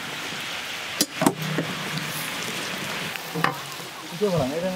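Cubed pumpkin sizzling in a large flat steel pan over a wood fire, with a steady hiss. A metal ladle stirring it knocks sharply against the pan twice, a little after a second in. Brief voices come in near the end.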